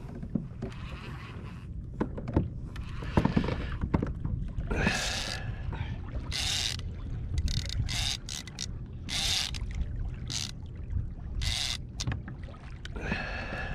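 Water slapping and rushing against a fishing kayak's hull, with a steady low wind rumble on the microphone and several short hissing splashes scattered through the middle.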